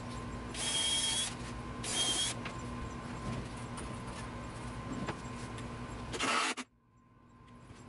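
Two short sliding rasps about a second apart, with a thin squeak in each, as drawers of a wooden drawer cabinet are pulled and pushed on their slides, over a steady background hum. A further short scrape comes after about six seconds, and then the sound cuts off abruptly.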